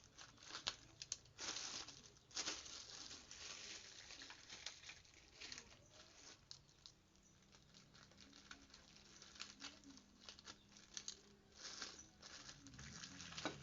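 Packaging rustling and crinkling as newly unboxed tools are handled, with scattered short clicks and knocks.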